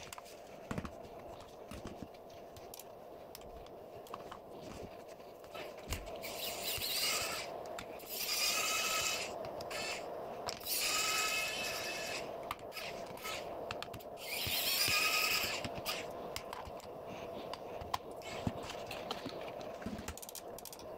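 Electric precision screwdriver whirring in four bursts of about a second each as it drives screws out of a laptop's bottom cover. Small clicks and knocks come between the bursts, over a faint steady hum.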